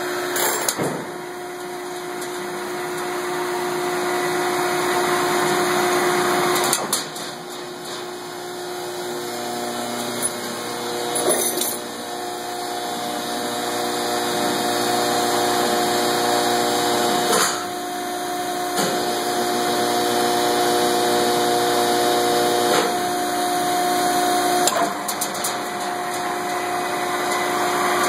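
Lakeside Stanpac inserter machine running, its roller chain drive moving over the sprockets with a steady mechanical hum and whine. Short sharp clacks break in now and then, a few seconds apart.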